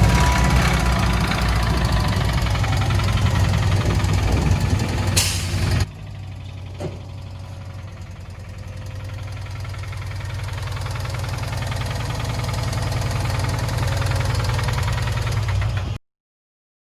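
A vehicle engine running with a dense, rapid low rumble. The sound drops sharply about six seconds in, then slowly builds again.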